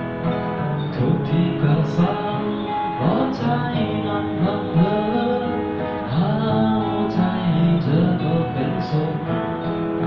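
Acoustic guitar strummed steadily under a man singing a slow ballad, performed live through a small PA.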